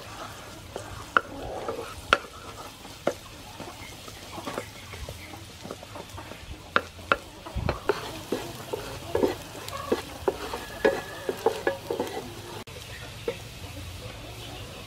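Chopped garlic sizzling in hot soybean oil in a nonstick frying pan, stirred with a wooden spatula that scrapes and knocks against the pan in frequent, irregular sharp clicks.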